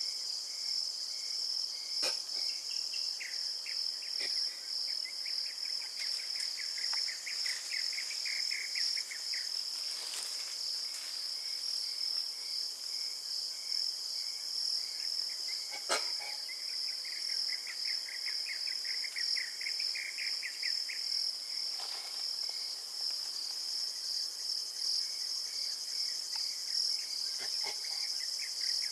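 Rainforest insect chorus, crickets or similar: a steady high-pitched pulsing buzz, with a lower rapid trill that starts and stops several times, each bout lasting a few seconds. A few sharp clicks or snaps stand out now and then.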